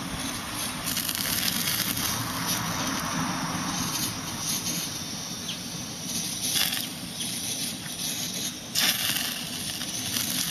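Portable canister gas stove burner running steadily under yakitori skewers sizzling on a wire-mesh grill, with a few louder crackles about two-thirds of the way in and near the end.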